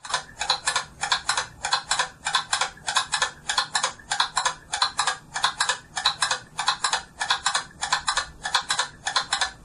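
Clock ticking sound: an even run of short, sharp ticks, about four a second, from the squirrel clock video playing on the homemade clock's screen.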